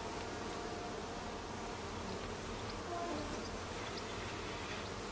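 Steady buzzing of many honeybees from an open colony during a hive inspection.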